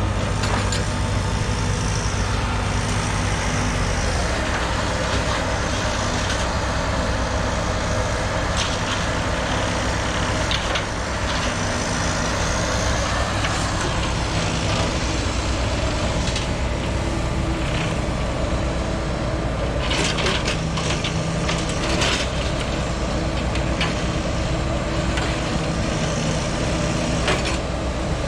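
Heavy diesel machinery running steadily, with scattered clanks and knocks, several close together about twenty seconds in.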